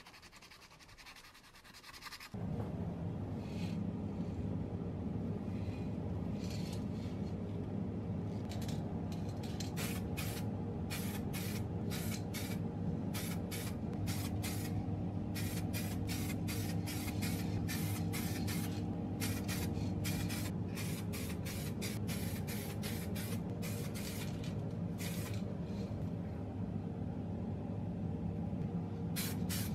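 Aerosol spray paint can hissing in many short bursts, one or two a second, over a steady low hum that starts about two seconds in.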